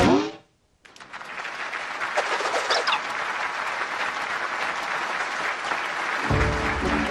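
Audience applause that swells up about a second in and continues steadily after the end of a short voiced sound effect, with cartoon music coming in near the end.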